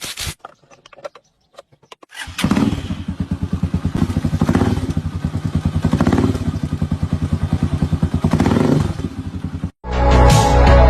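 Hi Speed Infinity motorcycle's four-stroke engine starting about two seconds in, then running and revved up and down four times, on a freshly fitted cam gear set meant to cure a gear noise. A few clicks come before it starts, and music cuts in near the end.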